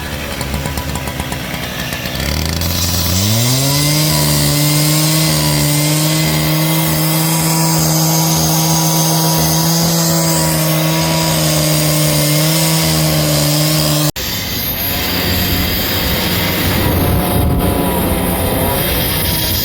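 A small engine revs up about three seconds in and holds a steady, high-pitched run. About fourteen seconds in it breaks off abruptly into a rougher, noisier machine sound.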